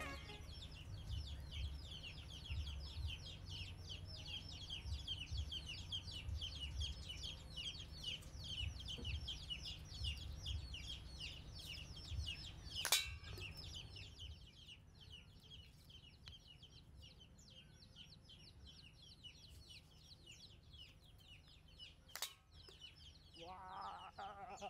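Faint outdoor ambience of rapid, high-pitched chirping that keeps up throughout. Two sharp clicks come about nine seconds apart, and a short pitched call sounds near the end.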